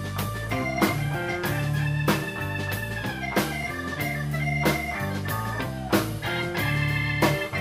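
Live blues band playing an instrumental passage: electric guitar, bass and drums, with a sharp drum hit about every second and a bit, under a lead of long held, slightly bending notes.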